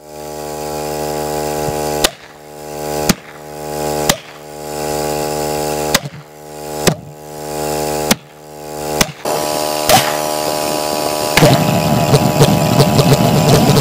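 A steady electric hum from the pulsejet's ignition and air-supply rig, interrupted by a string of sharp clicks. About eleven seconds in, a louder, rough, rapid pulsing sets in as the homemade valveless pulsejet begins to catch and fire.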